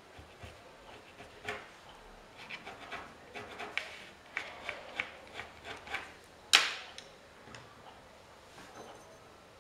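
Quick scratchy strokes of a drawing stick rubbing across paper, a short stroke every half second or so, with one sharp louder knock about six and a half seconds in.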